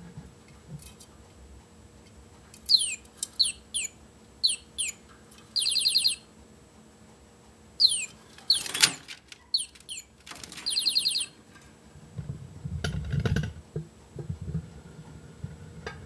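Male budgerigar courting: a run of quick high chirps that fall in pitch, then buzzy chattering calls. There is a short loud noisy burst in the middle and a low rustling scuffle a few seconds later.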